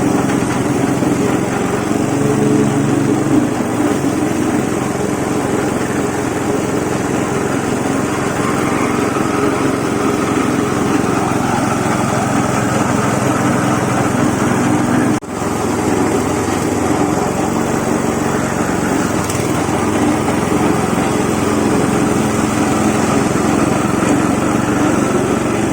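Stainless disk-mill salt grinder running steadily, a dense mechanical din with a low hum, grinding coarse salt into finer salt. The din breaks off for an instant about two-thirds of the way through.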